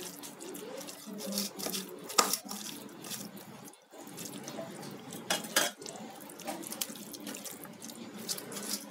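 Fish roe batter with chopped onion and chilli being squished and mixed by hand in a stainless steel bowl: wet squelching with irregular knocks and scrapes against the bowl, the loudest about two seconds and five and a half seconds in.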